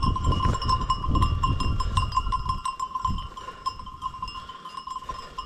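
Many small bells on a moving flock of sheep, clinking and ringing continuously. A low rumble sits under them on the microphone for about the first half.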